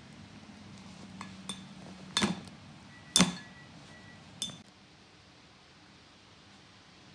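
A spoon clinking against a dish: about five sharp clinks with a short ring, the fourth, just past the middle, the loudest.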